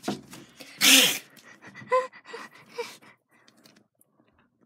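A person's short, loud, breathy vocal outburst about a second in, followed by a few faint short squeaks.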